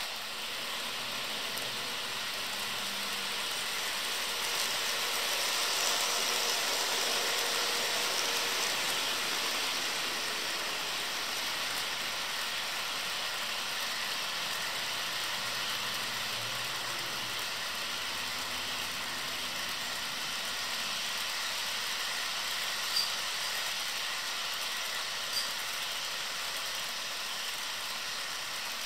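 HO scale model freight cars rolling along the track, a steady rushing hiss of small metal wheels on rail, with two small clicks near the end.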